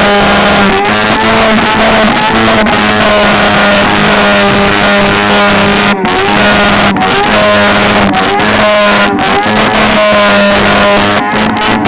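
Burnout car's engine held at high revs, very loud and steady with a wavering pitch, over a dense roar that fits spinning, smoking tyres.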